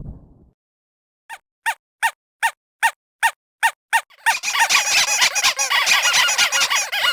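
Cartoon sound effect: eight short, squeaky chirps in an even run, about two and a half a second, then a dense jumble of many overlapping high, squeaky, bird-like calls.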